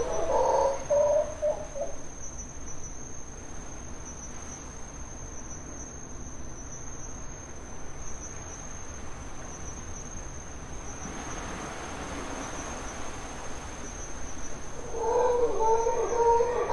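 Howler monkeys roaring for about two seconds at the start, then a quieter stretch, then roaring again over the last couple of seconds. A steady high-pitched insect drone sounds underneath.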